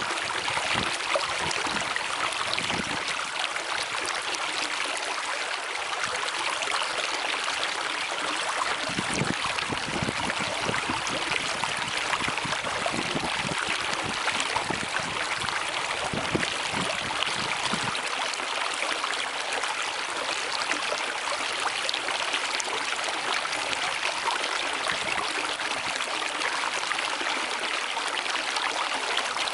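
Fast-flowing river water rushing steadily, an even hiss of running water, with brief deeper surges through the middle stretch.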